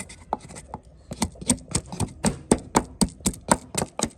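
Knife chopping on a cutting board: sharp knocks, a few scattered at first, then a steady rhythm of about four strokes a second from about a second in.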